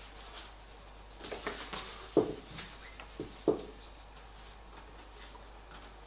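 Handling noise from fitting the solar camping shower's plastic pipe into its bag's carrying handle: a few soft plastic taps and knocks, the two loudest a little after two seconds and about three and a half seconds in.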